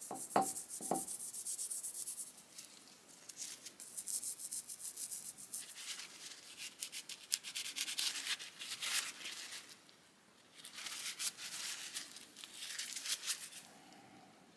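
Two light clinks against a drinking glass near the start, then rapid scratchy scrubbing of a plastic screwdriver handle, first with a toothbrush and then with a rag, in stretches with a short pause about two-thirds of the way through. The strokes are working off the softened white crust of a decomposed cellulose acetate butyrate handle after an ammonia soak.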